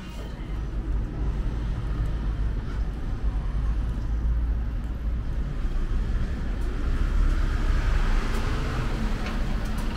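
Street traffic noise: a steady deep rumble of passing road vehicles, swelling near the end as a vehicle goes by.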